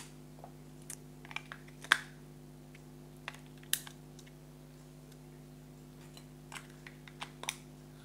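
Scattered plastic clicks and taps as batteries are fitted into the battery compartment of a TV-139F universal remote control, the loudest about two seconds in and a quick run of clicks near the end.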